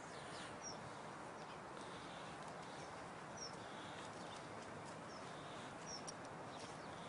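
Faint outdoor ambience: a steady hiss with a few short, high bird chirps scattered through it.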